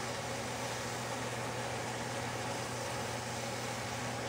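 Steady, even hiss with a constant low hum underneath, unchanging throughout.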